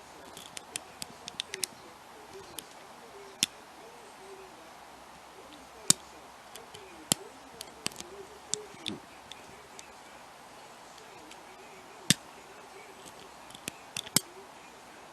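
Lock pick and tension tool working the pins of a pin-tumbler challenge lock held in hand: irregular sharp metallic clicks, a few much louder ones, as pins set and the pick moves. Under them, a bird coos faintly over and over.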